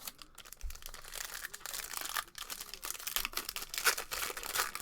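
Crinkling and tearing of a trading card pack's wrapper as a Panini Prizm football hobby pack is ripped open, in irregular crackly bursts.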